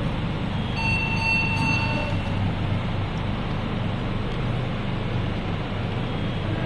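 Steady low hum with an even rushing noise behind it. A thin high tone sounds for about a second and a half, starting just under a second in.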